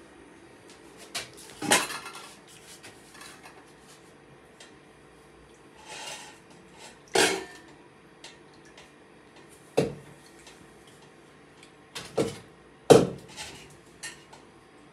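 Stainless steel pots, bowls and utensils clanking against each other and the counter as they are handled: a handful of separate sharp metallic knocks with a short ring, a few seconds apart, the loudest near the end.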